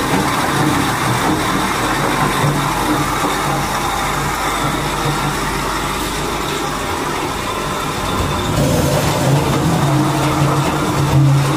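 AAC block crusher machine, driven by an electric motor, running with a steady loud mechanical drone and hum. It grows louder and rougher about eight seconds in.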